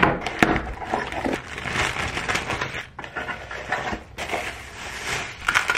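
Cardboard boxes and packaging rustling and scraping as items are unpacked by hand, with a few small knocks on the desk.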